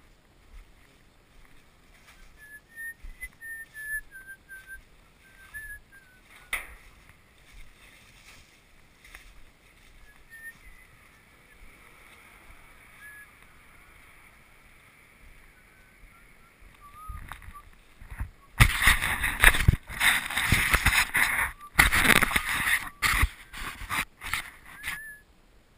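Faint high chirping calls on and off, then from about two-thirds of the way in, a run of loud gusty bursts of noise on the microphone with short breaks between them. A single sharp click comes about six seconds in.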